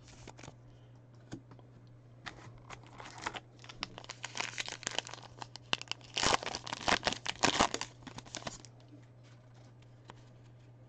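A trading-card pack wrapper being torn open and crinkled by hand, in bursts of crackling that are loudest about six to eight seconds in.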